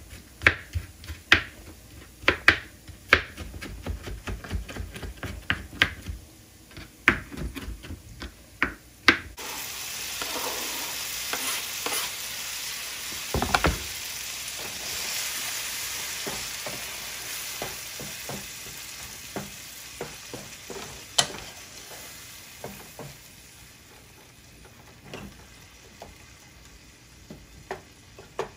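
A knife chops tomato on a plastic cutting board in quick, sharp strokes for about the first nine seconds. Then diced tomato goes into hot oil with fried onions and sizzles loudly, with a heavy knock a few seconds later and a wooden spatula knocking and scraping in the nonstick pan as it stirs. The sizzle slowly dies down.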